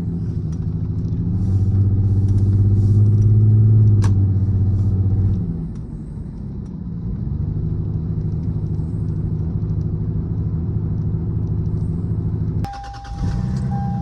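Lexus GS300's 2JZ-GE straight-six engine running steadily, louder for a few seconds about two seconds in, with a short sudden break near the end. The engine has a cylinder 6 misfire.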